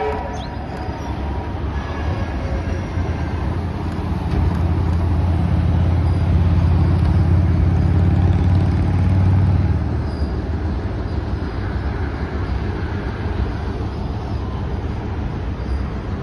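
Passenger train hauled by NSW 45 class diesel locomotive 4501 crossing a steel girder bridge: a horn note cuts off right at the start, then the locomotive's deep engine rumble swells, is loudest a few seconds past the middle and drops away about ten seconds in, leaving the steady rolling of the carriages over the bridge.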